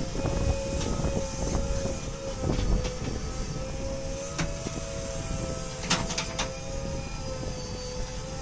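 JCB 3DX backhoe loader running, heard from inside its cab: the engine and hydraulics hold a steady whine while the backhoe arm swings and dumps soil. Irregular knocks and clatter come in the first few seconds, and a short burst of sharp metallic clicks comes about six seconds in.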